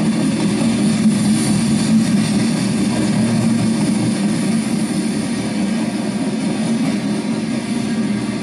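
Steady rumble and roar of freight train coal gondolas rolling past, steel wheels on rail, with no horn or other distinct event.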